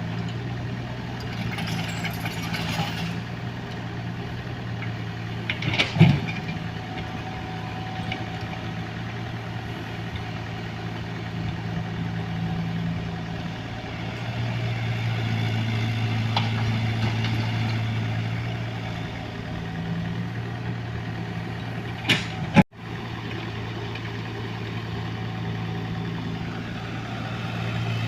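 Heavy-equipment diesel engines running steadily, getting louder for a few seconds past the middle. Sharp clanks come about six seconds in and again near the end.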